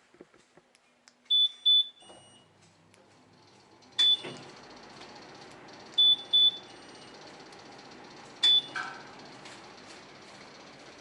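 Short high electronic beeps from a Yamaha Tricity scooter's keyless answer-back system: a double beep, a single beep with a click, another double beep, then a single beep with a click. A steady low hum sets in about two seconds in and carries on underneath.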